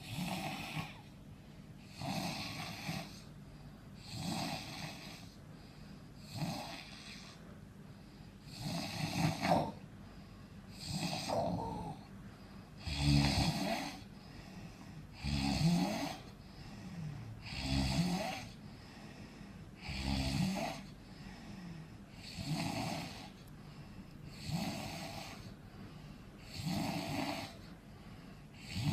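A person snoring steadily, one snore about every two seconds. The snores around the middle are louder and carry a deep, low rumble.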